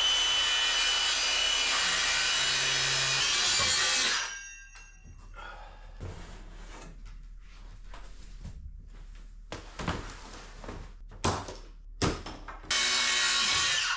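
Handheld circular saw spinning up and cutting through a sheet of plywood for about four seconds, its motor whining over the cutting noise, then winding down. Knocks and shuffling of the cut panels follow, and near the end the saw runs again briefly.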